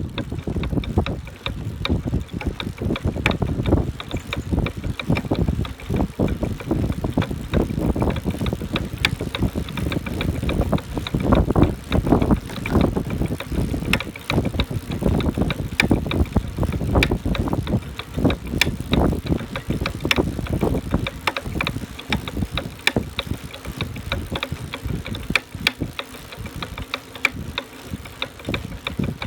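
Buzz Charter F e-bike's rear motor knocking loudly, frequently and irregularly while the bike is pedaled, like metal parts colliding inside the motor: a fault in the brand-new motor.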